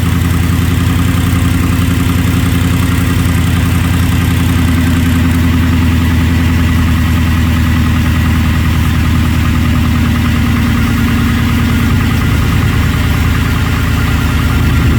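Ford Gen 3 Coyote 5.0 V8 idling steadily, running on its newly replaced high pressure fuel pump.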